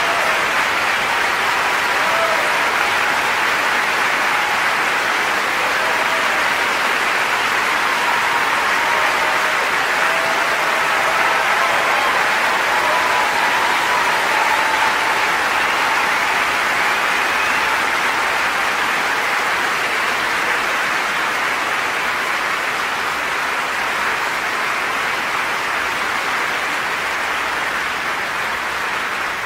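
Large audience applauding in a long, steady ovation that eases slightly near the end.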